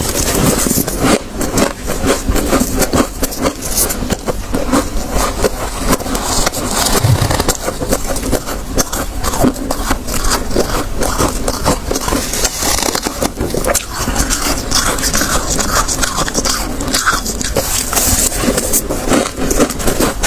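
Soft, snow-like freezer frost being bitten and chewed close to a clip-on microphone: a dense, continuous crunching made of many small crackles.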